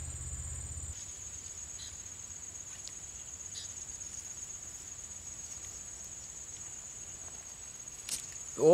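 Insects trilling in the grass: a steady, high-pitched drone that holds unbroken throughout. A low hum underneath stops about a second in.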